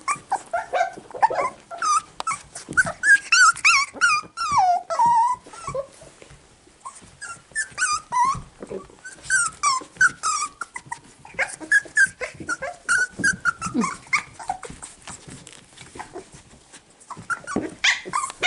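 Six-week-old cockapoo puppies play-growling and yipping: many short, high calls that bend in pitch, with two brief lulls.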